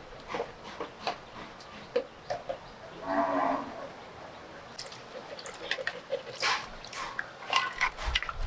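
A short farm-animal call, under a second long, about three seconds in, among scattered clicks and knocks.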